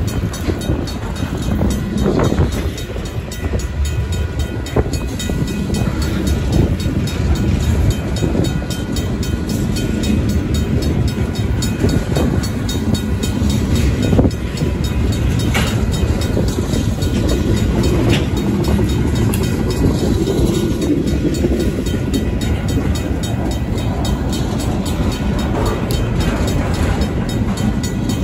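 Tank cars of a slow-moving freight train rolling past, with the steady low rumble and clatter of their wheels on the rails. The crossing's RACO mechanical bell rings steadily over it.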